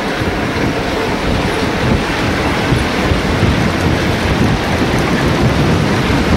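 Wind buffeting the microphone: a loud, steady, rumbling roar that largely covers a diesel-hauled passenger train running past.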